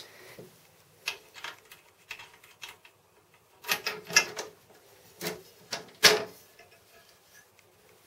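Key working the side-panel lock of a Nexus Edge PC case and the panel being opened: a few faint clicks, then a run of louder clicks and clunks about four to six seconds in, the loudest about six seconds in.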